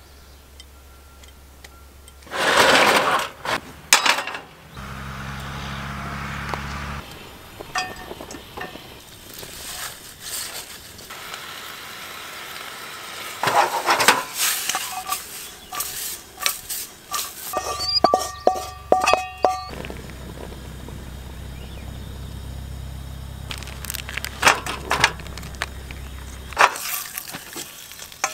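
Camp cooking on a portable gas cartridge stove: pots, pans and utensils clinking and knocking, and a wooden spatula scraping and stirring greens in a wok. A short burst of rushing noise comes about two and a half seconds in.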